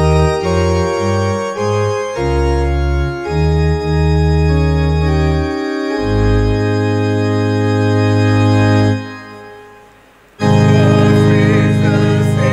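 Organ playing a hymn introduction in sustained chords over a moving bass line. It fades out about nine seconds in and comes back in loudly a second later as the first verse begins.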